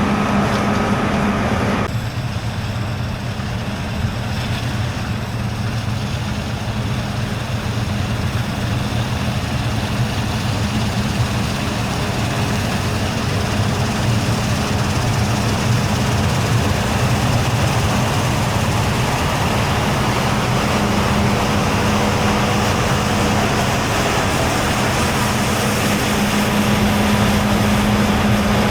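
Large farm harvest machinery engines running steadily under load, a constant heavy diesel drone. The sound changes abruptly about two seconds in.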